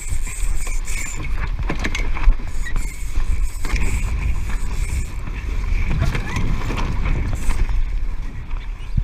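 Water splashing and slapping against a Laser dinghy's hull as it sails through choppy water, with wind buffeting the boat-mounted camera's microphone as a constant low rumble.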